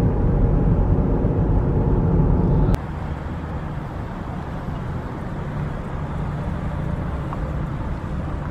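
Car driving at road speed, heard from inside the cabin: steady low road and engine noise. About three seconds in it cuts off suddenly to quieter, steady outdoor background noise.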